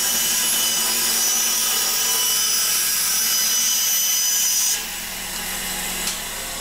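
Bandsaw ripping a laminated hardwood board along the fence, a loud steady sawing. About five seconds in the blade leaves the wood and the sound drops, the saw running on freely.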